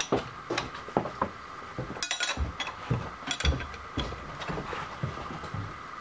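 Vertical milling machine at work on an aluminium part: a steady faint machine hum under irregular clicks and knocks from the table and cutter.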